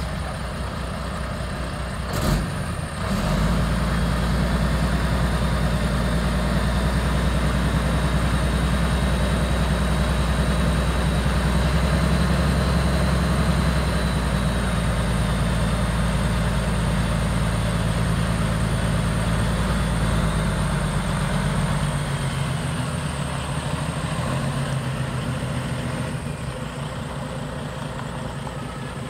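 International 9200 Eagle tractor's 12.0-litre inline-six diesel engine catching about two seconds in, then idling steadily. After about twenty seconds the sound changes and fades as the truck pulls away.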